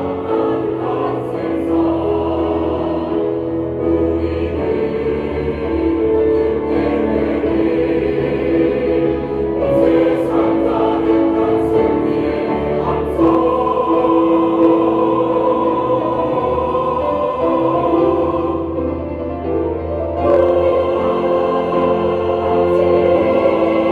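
Church choir singing an anthem, holding long sustained chords that change every few seconds.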